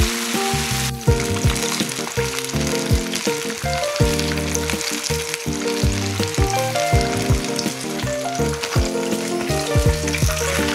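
Flour-coated chicken wings deep-frying in hot oil, a steady sizzle, under background music with bass and piano notes.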